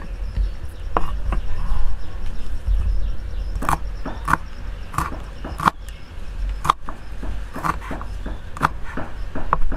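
A kitchen knife slicing fresh red chilies on a wooden chopping board: about a dozen irregular sharp chops as the blade knocks through onto the wood, coming faster in the second half. A faint steady insect trill runs behind.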